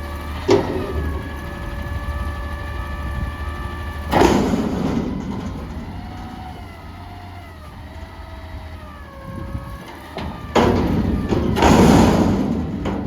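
Peterbilt 320 front-loader garbage truck running, with steady whining tones that rise and fall in pitch. A sharp bang comes about half a second in, and two loud noisy bursts follow, one about four seconds in and a longer one near the end.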